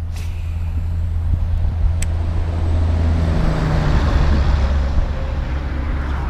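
An engine running steadily with a low hum, its pitch stepping down about three and a half seconds in, with a hiss swelling under it in the middle.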